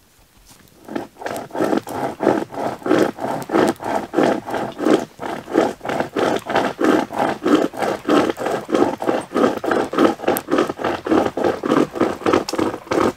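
A hand saw cutting through deadwood in quick, even strokes, about four or five a second. It starts about a second in and runs without a break.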